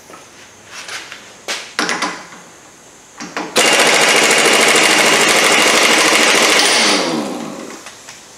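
Pneumatic impact wrench hammering on the front wheel hub's centre axle nut for about three and a half seconds, then its motor winding down with a falling pitch once the trigger is released. A few knocks from handling the tool come before it starts.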